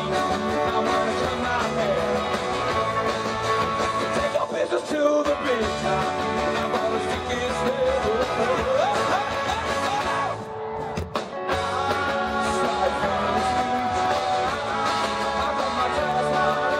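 Live folk-rock band playing: strummed acoustic guitars and keyboard under a singing voice, with a brief drop in the music about ten seconds in.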